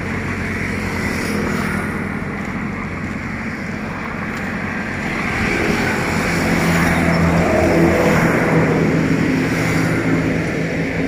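Steady vehicle noise: a motor engine running nearby, with a low hum that comes in about halfway through and grows louder.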